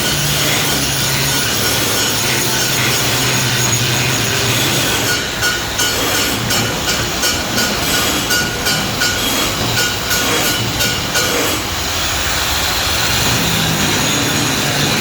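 Stick (shielded metal arc) welding with an E6013 electrode: the arc crackles and sizzles steadily. From about five seconds in to about twelve the crackle breaks into uneven pulses, roughly two a second, then evens out again.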